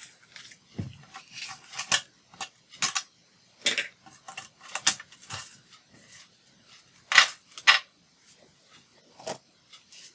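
Sheets of decorated junk-journal paper being handled, shuffled and slid across a cutting mat: a series of short, irregular rustles and scrapes, with a soft thump about a second in and the two loudest rustles a little past seven seconds.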